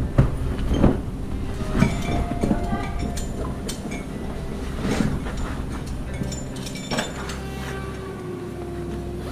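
Metal caving hardware, carabiners and a rope device, clinking and knocking a number of times as rope and gear are handled, over the rustle and rumble of handling close to the camera.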